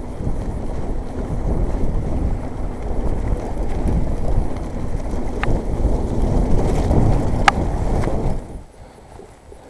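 Riding noise of a 29er mountain bike going fast over a wet, muddy trail: a dense rumble of tyres, rattling and wind buffeting on the action-camera microphone, with a couple of sharp clicks. It drops away suddenly about eight seconds in.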